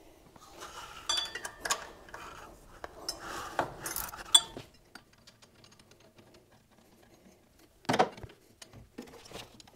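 Irregular metallic clinks and rattles of a wrench and bolt as the last 9/16 bolt is worked out of the steel alternator adjustment bracket, then a quieter stretch and one sharper clink about eight seconds in.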